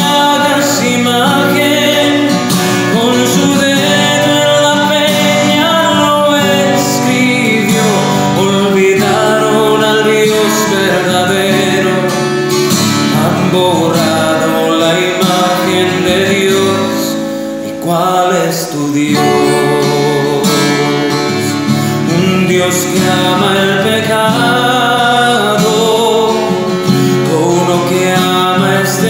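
A man singing a song to his own strummed acoustic guitar, with a brief dip in the music about 18 seconds in.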